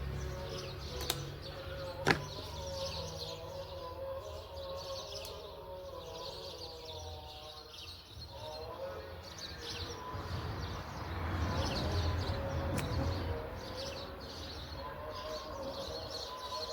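Small birds chirping and twittering over a steady low hum, with a single sharp click about two seconds in and a swell of rushing noise about ten seconds in.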